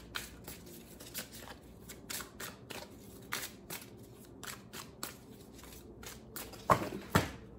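Tarot cards shuffled overhand by hand, giving a run of soft, irregular card flicks and slaps, with two louder slaps near the end.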